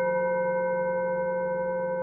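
A singing bowl ringing out after a strike. Its long tone fades slowly, and the higher overtones die away first.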